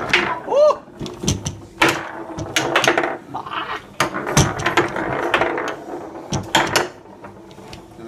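Irregular sharp clicks and knocks of hard objects, with a short vocal exclamation about half a second in.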